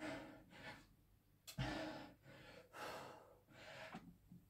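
A man breathing hard, in about five heavy, separate breaths, one of them voiced like a groan. These are the laboured breaths of exhaustion partway through a 50-rep set of barbell back squats.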